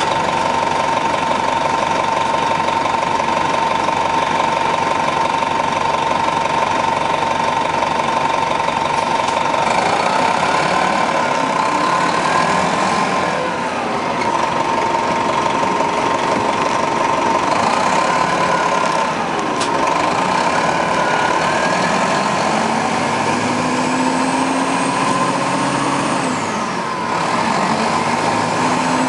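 The Detroit Diesel Series 50 diesel engine of a 1996 Nova RTS transit bus idling steadily, with a constant whine over the engine drone. From about ten seconds in, other engines rise and fall in pitch over the idle.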